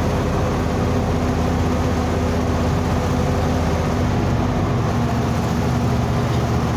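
A vehicle's engine running steadily while driving, heard from inside the cab. Its note shifts slightly about five seconds in.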